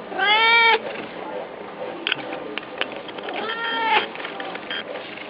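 Domestic cat meowing twice: a loud half-second meow right at the start, rising then easing in pitch, and a second meow about three and a half seconds in. A few light clicks or taps fall between the two.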